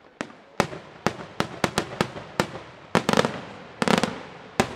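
Daytime aerial fireworks bursting overhead: a quick, irregular series of about a dozen sharp bangs, each trailing off, with two fast rolls of reports about three and four seconds in.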